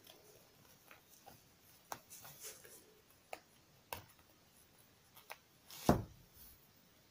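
Hands handling satin fabric on a table: faint rustling and a few small clicks, with one louder thump about six seconds in.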